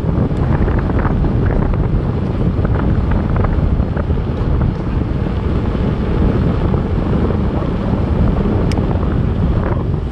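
Wind buffeting the camera's own microphone while riding a bicycle: a loud, steady rumble of wind noise.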